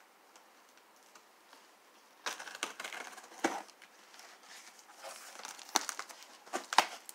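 A cardboard shipping box being opened by hand: tape tearing and cardboard flaps scraping and rustling, starting about two seconds in, with a few sharp knocks of the box near the end.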